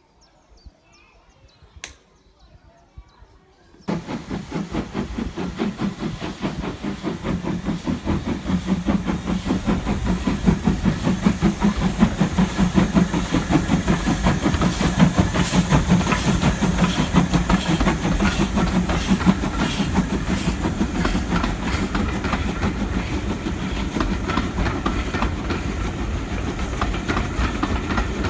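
Faint birdsong for about four seconds, then a steam train's sound cuts in abruptly: loud and running with a fast, steady beat and a rattle of wheels on rail.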